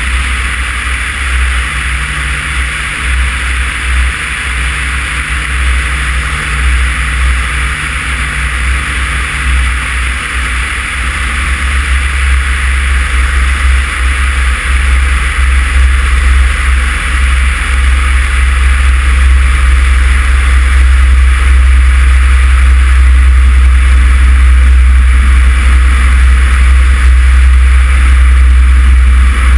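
Cessna 140 engine running with strong wind rush over an outside-mounted microphone as the ski plane comes in low over a frozen lake to land. The noise grows louder from about halfway through and stays loud.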